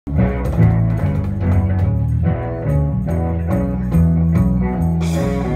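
Live jazz-fusion band playing: an electric bass guitar carries a sustained low line under electric guitar, with regular tabla strokes. There is a short hissing swish near the end.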